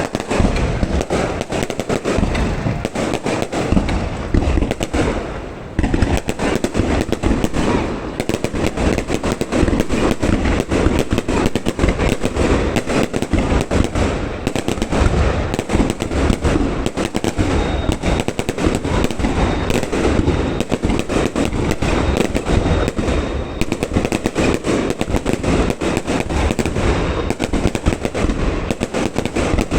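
Aerial fireworks display: a dense, unbroken barrage of bangs and crackles that eases briefly about five seconds in.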